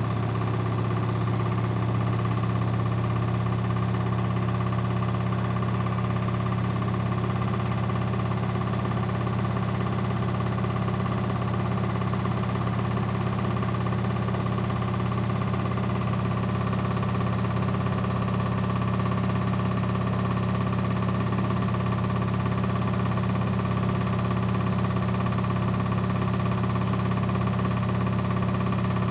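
LG 7 kg washing machine running with a loud, steady hum and vibration, the abnormal noise its owner calls horrible.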